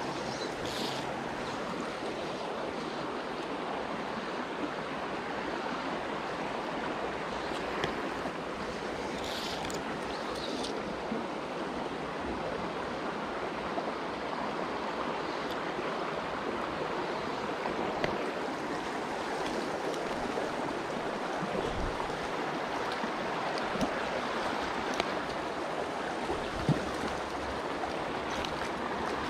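Shallow mountain creek running over rocks in a steady rush, with a few light clicks now and then.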